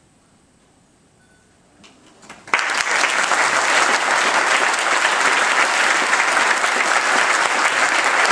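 Audience applause: a quiet pause, a few scattered claps about two seconds in, then the whole audience clapping steadily from about two and a half seconds in.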